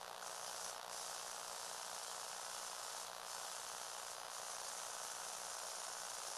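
Small electric motors and plastic gear train of a Lego Technic four-wheel-drive model whirring as a steady high buzz. The buzz grows brighter for stretches and then eases back.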